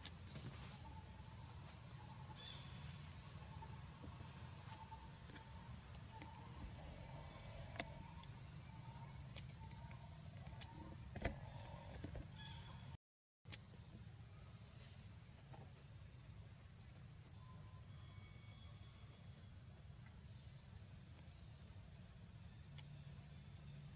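Faint, steady high drone of insects at two pitches, over a low rumble. Through the first half a faint short note repeats about twice a second, with a few sharp clicks. The sound cuts out for a moment about halfway, and after that the insect drone is louder.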